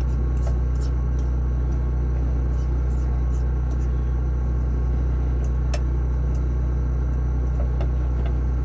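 A steady low hum runs under the soft hiss of greens steaming in a frying pan. A few light clicks come from a utensil stirring in the pan.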